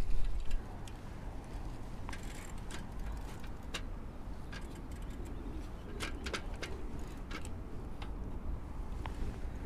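Bicycle being ridden: a steady low rumble with scattered, irregular clicks and rattles from the bike.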